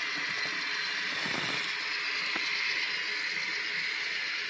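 N scale model diesel locomotives running on the layout track: a steady whirring hiss from the motors and wheels, with a few faint clicks.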